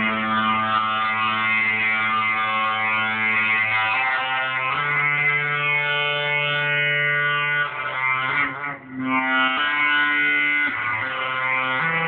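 Fender electric guitar sounded with an EBow through a Line 6 amp: long sustained notes, each held for a few seconds, moving to a new pitch several times, with a short dip in loudness about nine seconds in.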